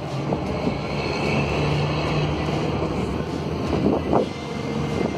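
Steady low hum with a rumbling, traffic-like background and wind on the microphone; a few light knocks about four seconds in.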